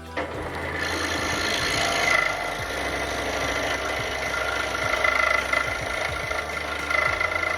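Scroll saw running and cutting wood: a steady motor hum with the blade's continuous rasping chatter, starting suddenly at the beginning.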